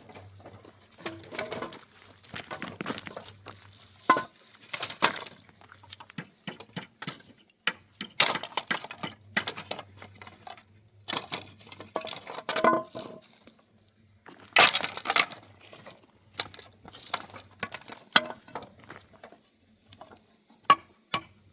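Hands working with wood and metal tools: irregular knocks and clicks, some with a short metallic clink, and a few brief scraping strokes, over a faint steady hum.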